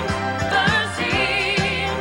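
TV sitcom theme song: voices singing with vibrato over a band with steady bass and an even beat.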